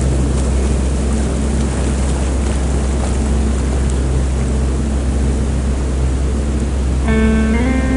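Steady rush of falling water from a waterfall, under held low notes of background music. The music's melody comes back in near the end.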